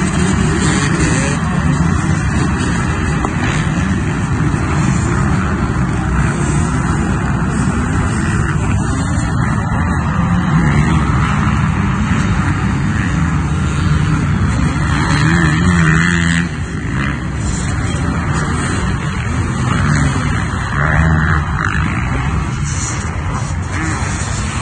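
A pack of motocross dirt bikes racing on sand, many engines revving up and down over one another in a loud, continuous din. It eases slightly about two-thirds of the way through as the pack thins out.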